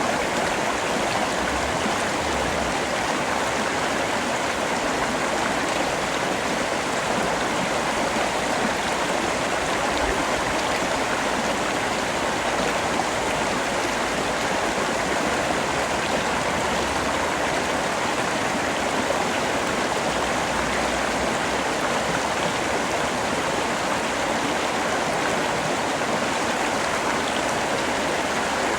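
Rain falling steadily, an even, unbroken hiss with no distinct drops or thunder.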